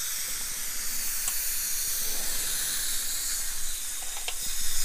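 Dental suction tip in the patient's mouth hissing steadily as it draws in air and saliva, with a few faint clicks.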